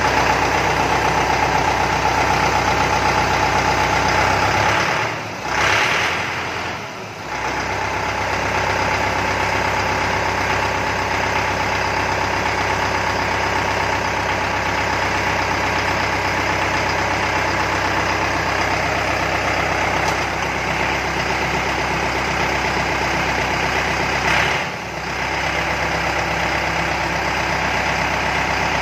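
Mahindra 4025 tractor's diesel engine idling steadily after start-up, with brief dips in level about five to seven seconds in and again near the end.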